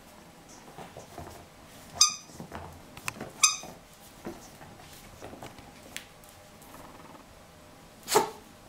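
Rubber squeaky toy squeaked twice, short and high-pitched, about two and three and a half seconds in, amid light knocks as a Jack Russell Terrier puppy plays with it. A short, loud sound follows near the end.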